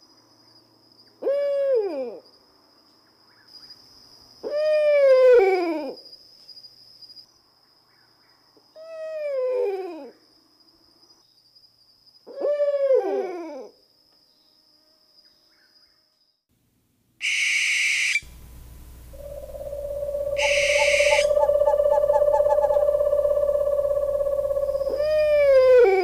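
Owl calls: a falling hooting note under a second long, repeated four times about every three and a half seconds over a faint, steady, high whine. About two-thirds of the way in, the calls break off for a sudden loud noisy burst, then a long, steady, loud tone over a low hum lasting several seconds. The falling owl call returns near the end.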